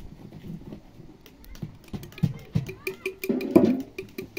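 A metal spoon clicks and clinks against a glass jar and pot as thick pomegranate paste is spooned into the jar, over crackling firewood. A short voice-like sound comes about three and a half seconds in, the loudest moment.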